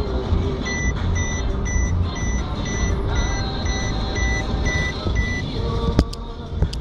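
Low road-and-engine rumble heard inside a moving car's cabin, with an electronic beep repeating about twice a second that stops about five seconds in. Two sharp clicks come near the end.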